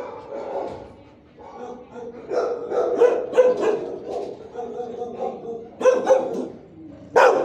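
Shelter dogs barking over and over from the kennels, in short bursts, the loudest bark about seven seconds in.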